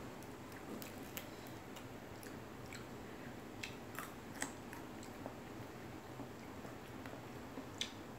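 Someone eating with their fingers: chewing and lip-smacking, with short sharp mouth clicks and fingers picking at fried salted fish on a plate. The clicks are scattered, the loudest about four and a half seconds in and near the end, over a steady low hum.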